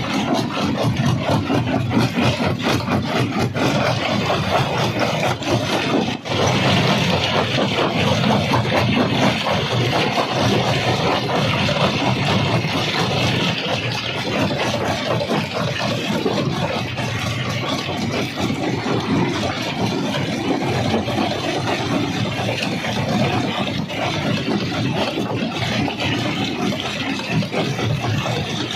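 Stone jaw crusher running at work, a steady heavy machine drone overlaid with dense rattling and cracking of rock being crushed, with a brief drop in level about six seconds in.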